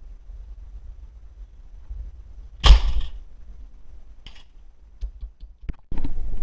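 Homemade PVC airgun firing once: a single sharp burst of released air about two and a half seconds in, then a few small clicks and knocks.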